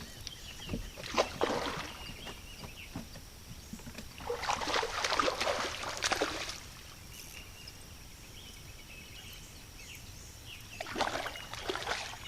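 Water splashing in three bursts as a hooked fish thrashes at the surface while being played toward the boat.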